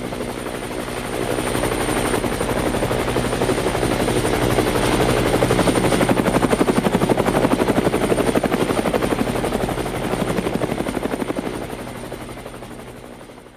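Whirring rotors of a hovering aircraft with a fast pulsing beat, fading in, swelling and fading out again near the end.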